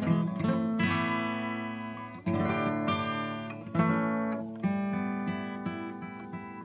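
Acoustic guitar played solo: chords strummed about once a second and left to ring out, with quicker picked single notes near the end.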